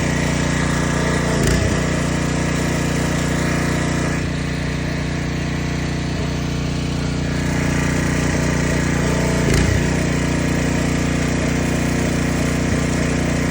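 Gas-powered Mi-T-M pressure washer's engine running steadily under a broad hiss, with two short knocks, one about a second and a half in and one near ten seconds.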